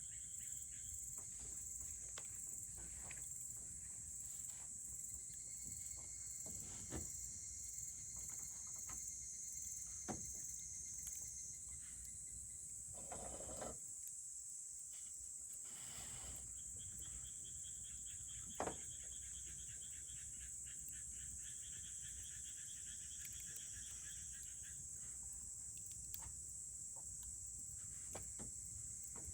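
Campfire burning quietly, with a few scattered sharp crackles and pops, over a steady high-pitched insect trill.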